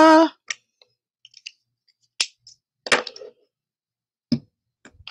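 The end of a sung "ta-da!", then a few scattered light clicks and taps as craft supplies are handled and set down on a desk.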